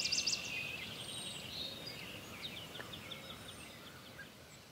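Songbirds singing in quick chirps and trills over a low, steady outdoor background rumble, fading out near the end.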